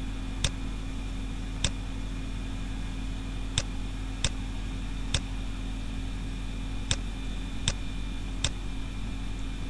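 Sharp single clicks, about nine of them spaced irregularly, made while text is handwritten on screen, over a steady electrical hum and hiss.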